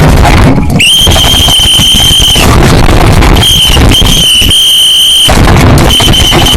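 A shrill, steady high-pitched squeal that sounds in long stretches of about a second and a half with short breaks between, over loud, harsh, distorted noise.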